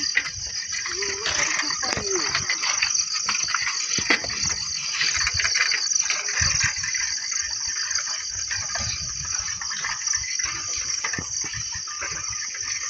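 Steady high-pitched insect chorus from the fields, with low rumbling and knocks from wind and the moving camera underneath.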